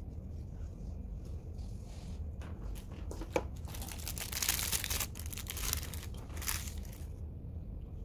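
A few light clicks, then plastic wrapping crinkling for about three seconds as a spare sunglasses lens is taken out of its packaging.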